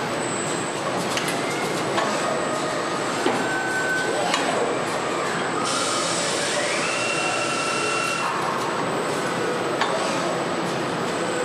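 Automated electric-motor stator production machinery winding copper wire coils, running with a steady mechanical hiss and scattered sharp clicks. About six and a half seconds in, a servo whine rises in pitch and holds for about a second and a half.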